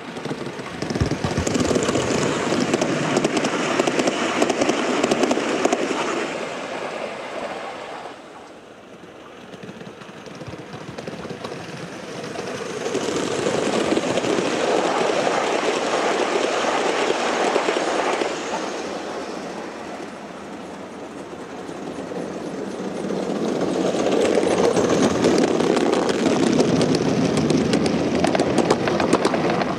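Gauge 1 model train coaches rolling past on metal rails, their wheels making a dense, rapid clicking over the track. The sound swells and fades three times as trains pass close: about a second in, around the middle, and again near the end.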